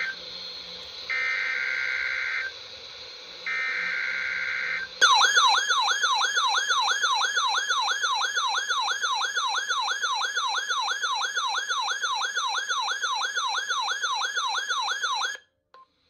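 NOAA Weather Radio SAME header data bursts: the tail of one and then two more, each about a second and a half long with short gaps of station hiss. About five seconds in, the RadioShack weather radio's own warbling siren alert starts, sweeping up and down about two and a half times a second for about ten seconds, then cuts off. The radio has been activated by a Required Weekly Test.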